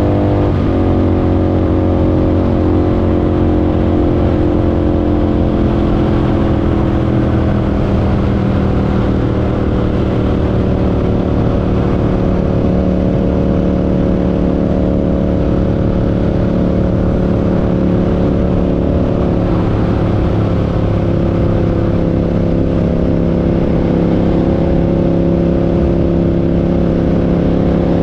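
Parallel-twin motorcycle engine running under way at steady speed. Its pitch drops sharply about half a second in, then holds nearly constant, sagging slightly and rising again later on.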